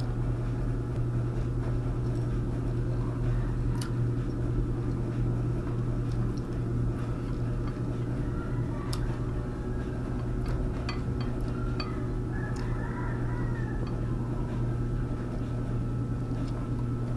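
Eating with the bare hands: soft scattered clicks of fingers working rice and fish on a plate, and chewing, over a steady low hum.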